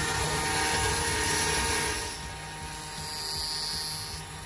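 Jewelry CNC's spinning diamond-cut head running and cutting a shiny background into the flat face of a metal bangle: a steady mechanical whir. It drops in level about two seconds in, and a higher hiss joins about a second later.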